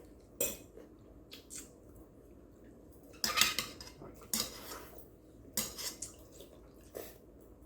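Eating utensils clinking and scraping against dishes in about six separate short strokes, the loudest and longest about three seconds in.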